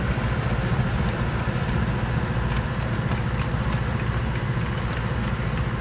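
Tractor engine running steadily, a low, even drone.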